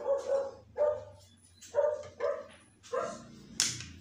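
A dog barking: short, repeated barks, about six in four seconds.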